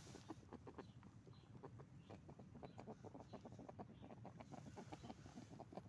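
A rabbit honking: a rapid, irregular run of short, faint grunting honks, several a second. This is a sound of a happy, excited rabbit, made when food such as pellets or treats is about.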